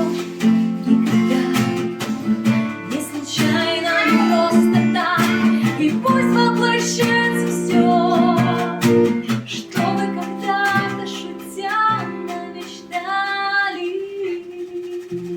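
Live acoustic song: a woman singing over a strummed acoustic guitar with djembe hand-drum strokes, the music easing down toward the end of the song.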